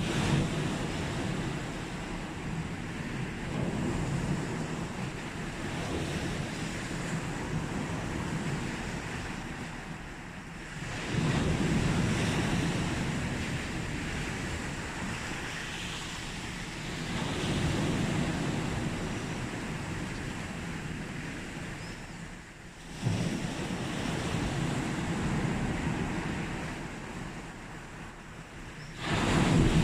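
Sea waves breaking on a beach, a rush of surf swelling and fading roughly every six seconds, with sharp surges about eleven, twenty-three and twenty-nine seconds in.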